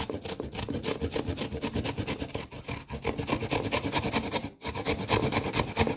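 A turnip being grated on a small hand grater: quick, even rasping strokes, with a short pause a little over four and a half seconds in.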